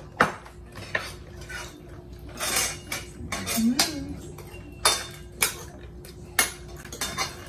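Forks and spoons clinking and scraping against ceramic dinner plates during a meal: a run of sharp, separate clinks spread across several seconds.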